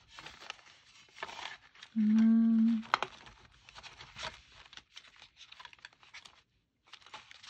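Sticker sheets crinkling and rustling, with small ticks, as star stickers are handled and peeled. About two seconds in comes a short hummed note in a voice, the loudest sound.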